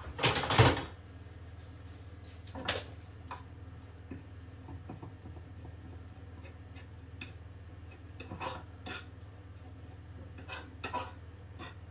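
Metal fork mashing and scraping garlic cloves against a wooden chopping board: scattered short taps and scrapes, opening with a louder clatter in the first second.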